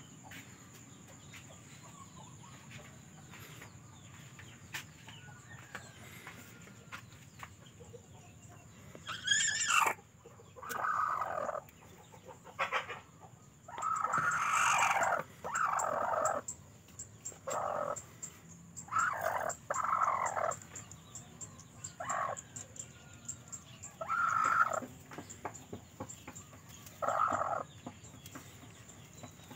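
Broody speckled hen on her nest squawking and clucking as a hand reaches under her for the eggs: quiet for about nine seconds, then a sharp rising squawk and about ten more short loud calls.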